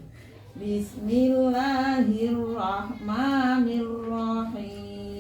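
A single voice chanting Qur'anic recitation in a slow melody. It starts about a second in, with long held notes that rise and fall.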